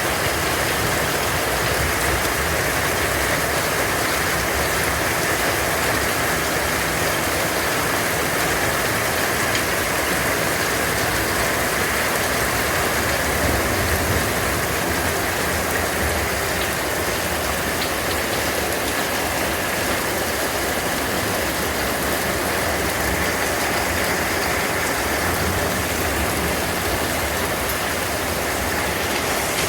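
Hailstorm: hail and rain pelting down steadily, a dense, even patter with no let-up.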